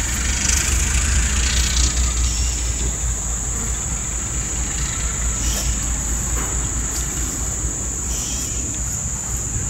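Diesel switcher locomotive's engine running with a low rumble as it moves off along the track, a little louder in the first two seconds. A steady high-pitched insect buzz runs underneath.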